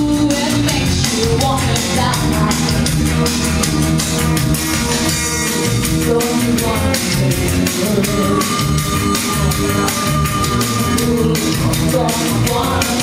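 Loud rock music with a steady drum beat, and a woman singing over it into a microphone.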